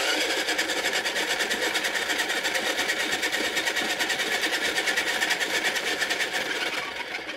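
Small electric pottery wheel motor running at speed, a steady whir with a fast, even pulse. It begins to wind down near the end.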